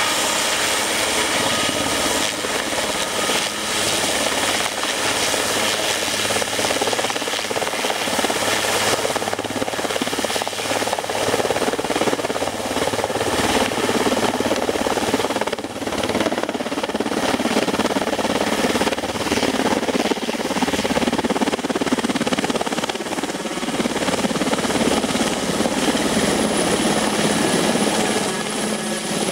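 Super Puma twin-turbine military helicopter running with rotors turning: a steady turbine whine over the dense rotor noise. It lifts off partway through and flies away overhead.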